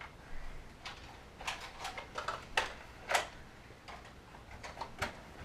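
Scattered short clicks and light knocks, about a dozen at uneven intervals, from Nerf blasters firing and foam darts striking things around the room.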